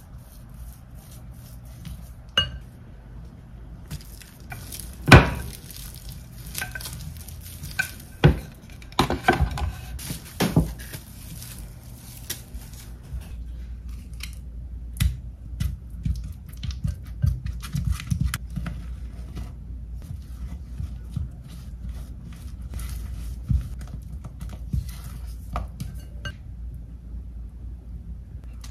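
Kitchen utensils and dishes clinking and knocking irregularly as food is prepared, the loudest knock about five seconds in and a few more sharp ones a few seconds later, over a low steady hum.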